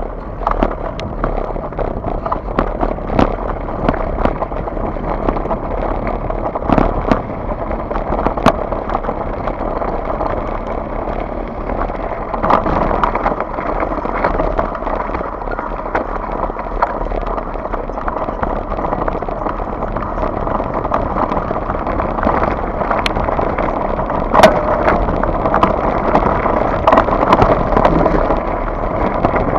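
Scott Genius full-suspension mountain bike descending a loose gravel track: a continuous rumble and rattle of tyres and frame over stones, with frequent sharp clacks from impacts, growing a little louder as speed builds.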